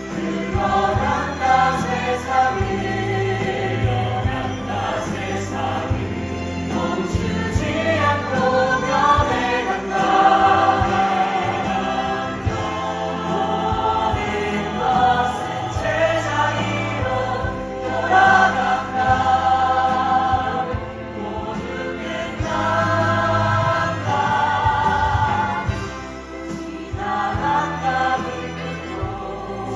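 Music: several voices singing together in chorus, with held, wavering notes over instrumental accompaniment and a steady bass.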